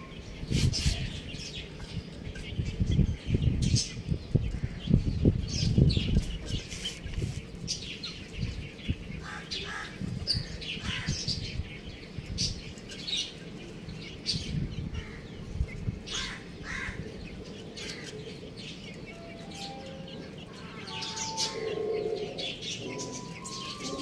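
Young chicks peeping in many short, high chirps, with low rustling and thumps through the first half.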